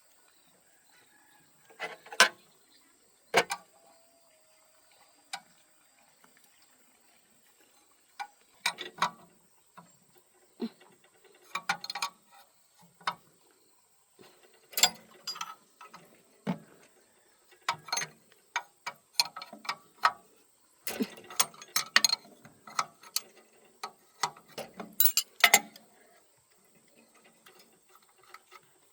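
Hand tools and metal engine parts clinking and knocking irregularly, with short quiet gaps between bursts of handling.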